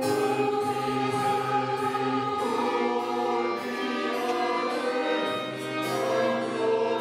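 Mixed choir of women's and men's voices singing long held chords, with violins and cello accompanying. The chord changes twice, at about two and a half seconds and again near five seconds.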